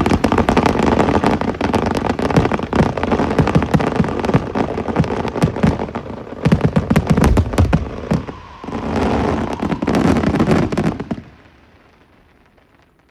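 A fireworks barrage: a dense, rapid run of bangs and crackling, dipping briefly once and then stopping suddenly about eleven seconds in.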